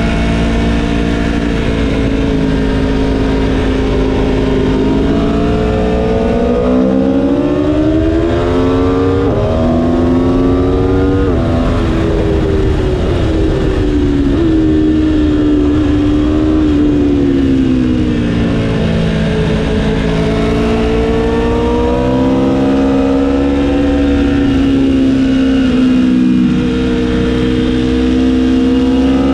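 Aprilia Tuono V4 1100's V4 engine at speed on track, with wind noise on the bike-mounted mic. The revs climb from about six seconds in with two quick upshifts, fall away as the bike slows for a corner, then climb again through the second half.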